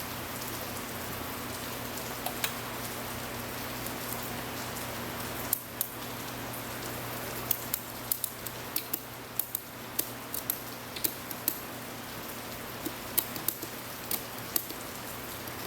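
Ratchet strap being cranked tight: a run of sharp, irregular clicks from the ratchet starting about five seconds in, over a steady hiss and low hum.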